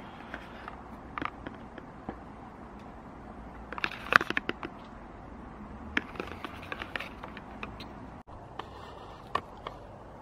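Close-up handling noise of an LED headlight bulb and its cardboard box: scattered clicks, taps and crinkles, loudest in a quick cluster about four seconds in and again around six seconds.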